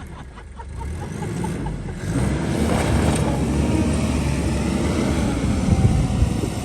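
A 4x4 off-road vehicle's engine revving hard under load on a hill climb, growing much louder about two seconds in, with a dense rumble.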